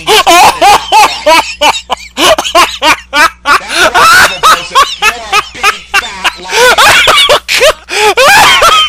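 A person laughing hard and uncontrollably, in rapid high-pitched bursts, several a second, with short gasps in between.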